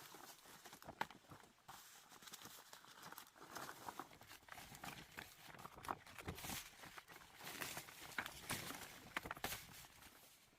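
Faint, irregular rustling and crinkling of leaves with light taps and clicks, from dong leaves being handled as bánh chưng rice cakes are wrapped by hand.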